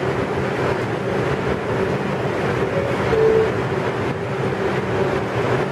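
Bombardier R142 subway train idling at the platform, its ventilation and electrical equipment humming steadily. About three seconds in, a two-note descending door chime sounds.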